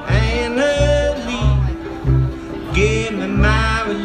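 Live bluegrass string band playing: a voice singing over acoustic guitar and fiddle, with the upright bass alternating between two low notes on the beat.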